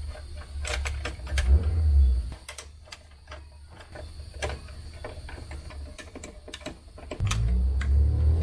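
Scattered light clicks and taps of a small plastic-and-metal Aisin door stabilizer being handled and fitted to the edge of a Toyota AE86 door. A low rumble runs under the clicks for about the first two seconds and comes back near the end.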